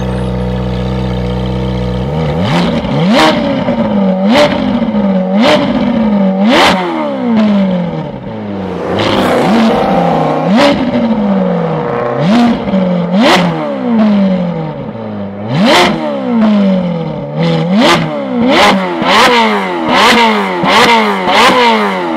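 Ferrari 458's V8 with a full Novitec exhaust idling, then blipped again and again from a standstill: each rev shoots up and falls back, with one longer held rev in the middle. The blips come quicker and closer together near the end.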